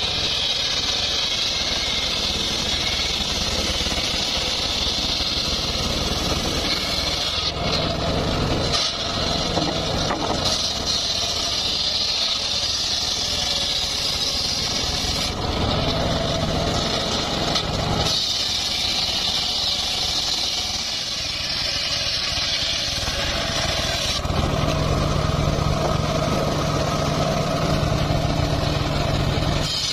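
Homemade circular sawmill ripping a mahogany log into boards: a large spinning blade cutting through the wood over a steadily running engine. The sound changes abruptly several times.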